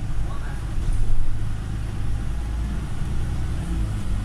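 Volvo MCV Evora single-deck bus's diesel engine running, heard from inside the passenger cabin as a steady low drone with a hum.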